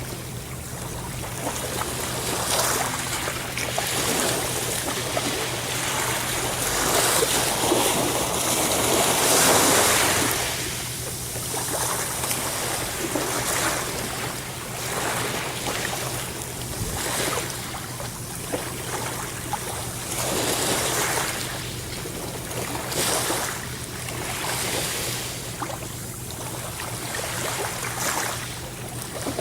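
Ocean waves breaking and washing in, a continuous rush that swells and falls back every few seconds, loudest about seven to ten seconds in.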